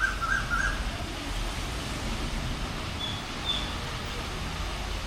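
A bird calling in a quick series of short chirps at the start, with two brief high chirps about three seconds in, over a steady hiss of outdoor background noise.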